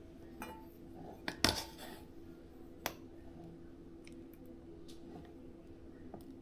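A few light knocks and clinks of kitchen utensils against dishes, the loudest about a second and a half in, with smaller ticks scattered after, over a faint steady hum.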